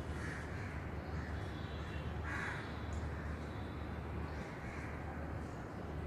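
A few short, harsh, caw-like bird calls, the loudest a little over two seconds in, over a steady low rumble of background noise.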